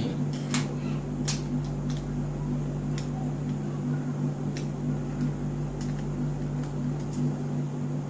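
Steady room hum, with faint scattered clicks of a screwdriver working the small screws of a metal alarm padlock.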